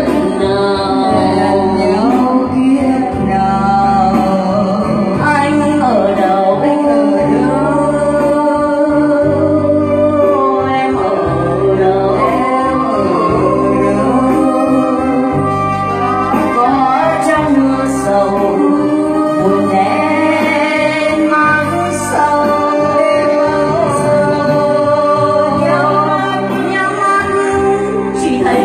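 Women singing a Vietnamese song through microphones, with electronic keyboard accompaniment and a steady repeating bass line.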